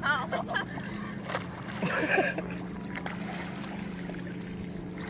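Boat motor running at idle with a steady low hum, with water splashing and sloshing close by.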